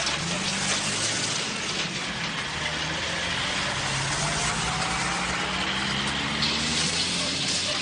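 Tractor-trailer tanker truck driving at speed: the semi's diesel engine runs with its note rising slowly midway, over steady road and wind noise.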